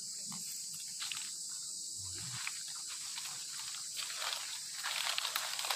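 Insects chirping in a steady high drone, with dry leaves crackling and rustling from about four and a half seconds in as someone moves through the leaf litter.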